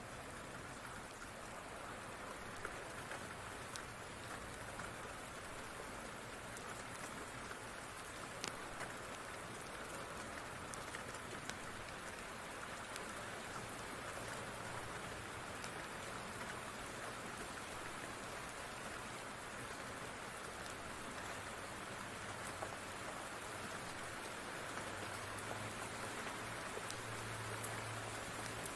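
Steady rain falling on a surface, with a few sharp clicks scattered through it. A low rumble builds near the end.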